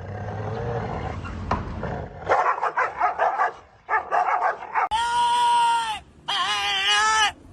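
A dog vocalizing: a run of quick yips, then two long whining cries about a second each.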